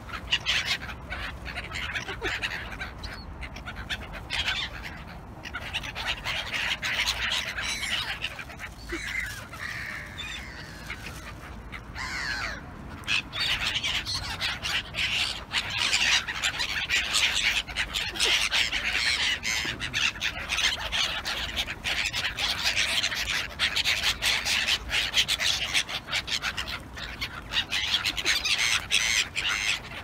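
A flock of black-headed gulls calling over one another in a steady din of harsh cries and squawks while being fed. The calling grows busier and louder about halfway through.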